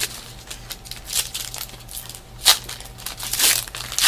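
Foil trading-card pack wrapper crinkling and being torn open, with a sharp rip about two and a half seconds in and another near the end.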